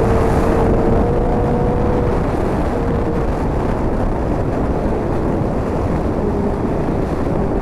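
Motorcycle riding at a steady speed: the engine runs with a steady whine, under a loud, continuous rush of wind and road noise.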